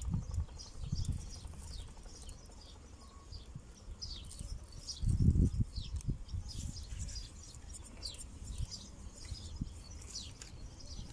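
Small birds chirping, many short high chirps sliding downward in pitch, repeated throughout, with a brief low rumble about five seconds in.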